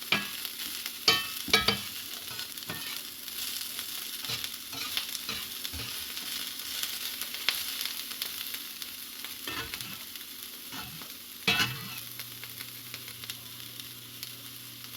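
Onions and chopped ham frying in a Lodge 8SK cast iron skillet: a steady sizzle, broken by knocks and scrapes of a utensil against the pan as the food is moved around, the sharpest about a second in and again near eleven and a half seconds.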